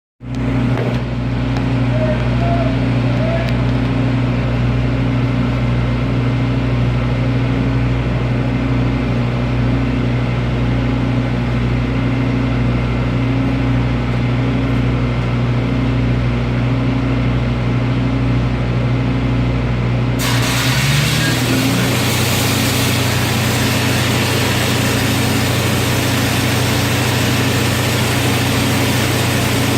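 Engine-driven welding machine running steadily. About two-thirds of the way in, a continuous crackling hiss starts suddenly: a 6010 stick-electrode arc struck for a pipe root bead, with the engine note changing as it takes the welding load.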